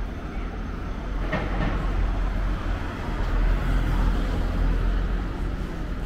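A heavy vehicle rumbling past, a deep rumble that builds over the first few seconds and eases off near the end, with a short clatter about a second and a half in.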